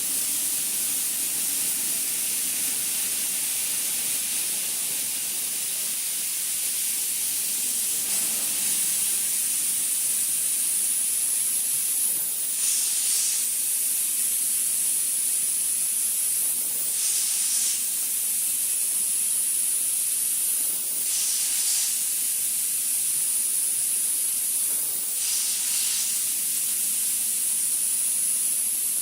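Steady high-pitched hiss of a CNC cleaning machine's spray jet at work, swelling into a brighter rush about every four seconds in the second half.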